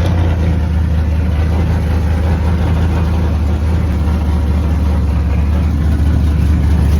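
A burnout truck's 6.0-litre V8 idling steadily just after start-up, with a little exhaust leak at the flange.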